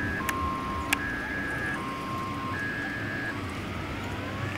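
Two-tone hi-lo siren alternating evenly between a lower and a higher pitch, each note lasting just under a second, stopping about three seconds in; faint rising wails follow. Two sharp clicks come in the first second.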